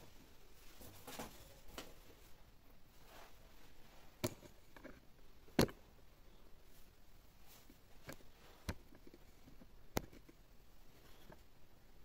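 Painting work in a quiet room: faint scratching with a few sharp taps, such as a brush or tool knocking on the canvas or palette, the loudest about halfway through.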